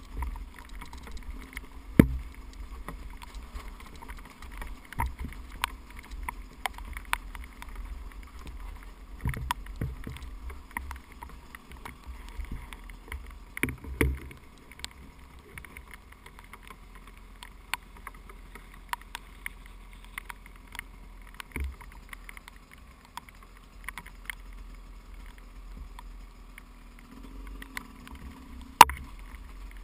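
A 300cc two-stroke dirt bike's engine running steadily at low throttle on a rough, rocky trail. Frequent clicks and knocks come from the bike over the rocks, with a sharp knock about two seconds in and a louder one near the end.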